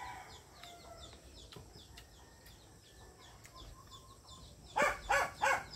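Faint background of small birds chirping again and again in quick high notes, with chickens clucking. About five seconds in come three louder short sounds close together.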